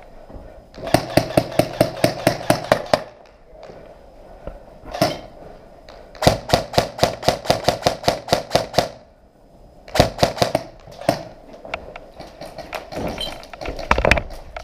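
Airsoft guns firing in strings of rapid shots, about seven a second: one string about a second in lasting some two seconds, a longer one from about six seconds in, then a short burst around ten seconds in and a few scattered shots near the end.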